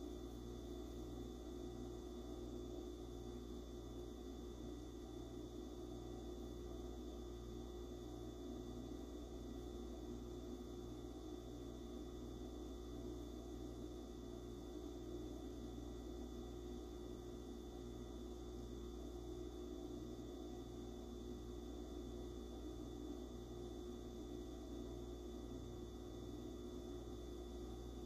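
Steady low electrical hum with a faint hiss and a soft, regular pulsing low down: room tone, with no sound heard from the candle flame.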